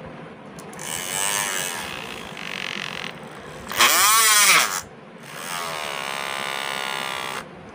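Electric hair trimmer, rewired to run straight off a 5-volt supply without its battery, buzzing in several short runs as it is switched on and off. Its pitch swings up and down within the first runs, the middle run is the loudest, and the last run, about two seconds long, holds a steady pitch.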